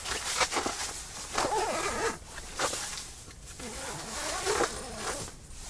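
Zipper on an ice-fishing tent's door being pulled shut in several rough pulls, with the tent fabric rustling.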